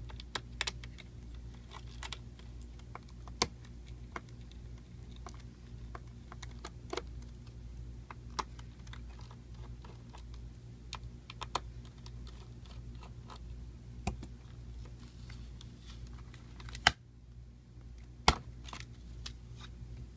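Small clicks and taps of a precision screwdriver and tiny screws against the plastic and metal of an Alienware 17 laptop's underside as screws are taken out, with a couple of sharper clacks near the end, over a steady low hum.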